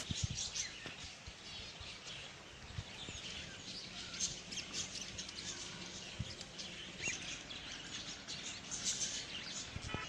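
Many birds chirping and calling at once in a dense, overlapping chorus of short high notes, with a few soft low thumps.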